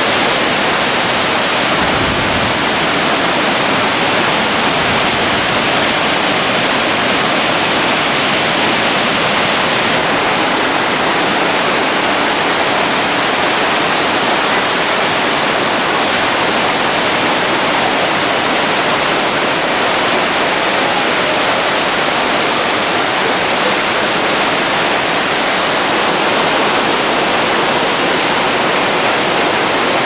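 The Yellowstone River's waterfall and whitewater make a steady, loud rushing roar of falling and churning water.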